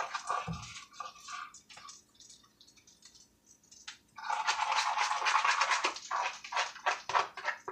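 Utensil stirring pancake batter in a mixing bowl, scraping the sides in quick strokes. The stirring goes lightly at first, pauses, then runs fast and steady from about four seconds in. There is a soft bump about half a second in.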